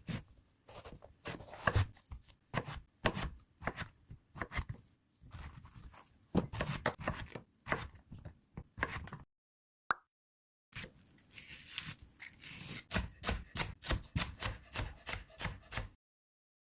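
Kitchen knife cutting vegetables on a cutting board: irregular chops, a few a second, broken by a brief gap about nine seconds in.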